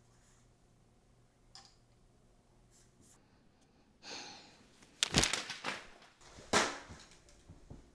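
Faint marker strokes scratching on paper in a quiet room, then from about four seconds in loud rustling and sharp knocks as things on the floor are handled, the loudest knocks about five and six and a half seconds in.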